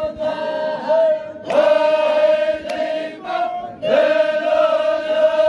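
Zikri chogan devotional chant: a group of voices singing in unison in long held phrases on one steady pitch, with short breaks between phrases.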